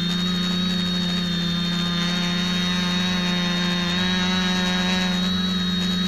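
X550 quadcopter's brushless motors and propellers holding a steady hover: a loud, even hum with a thin high whine above it, unchanging in pitch, heard from a camera mounted on the frame.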